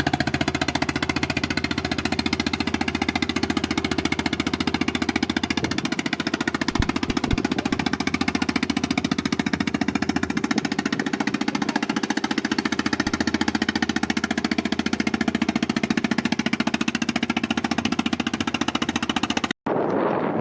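Fishing boat's engine running steadily at close range, with a fast, even beat of firing strokes.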